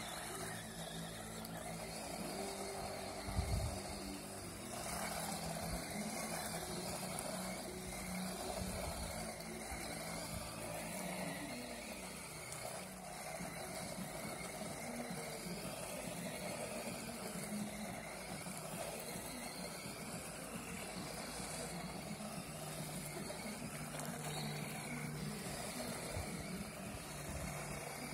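Radio-controlled Overmax X-Monster 3.0 monster truck driving and sliding on loose sand: its electric motor whirs steadily, with its tyres scrabbling through the sand. A short low thump about three and a half seconds in.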